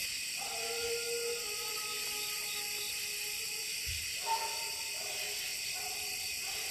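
A distant hound letting out long, drawn-out bawls, twice, over a steady chorus of night insects. The hunters take the change in its voice to mean the dog might be treed.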